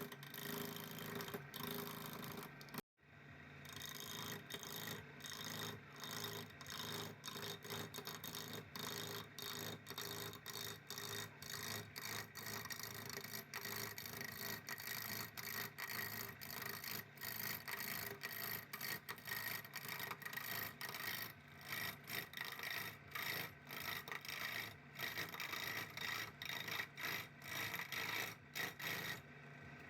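Rubbing and scraping by hand, an abrasive worked back and forth in quick strokes over rusty metal, as in rust removal. There is a brief break about three seconds in, and the strokes come faster near the end.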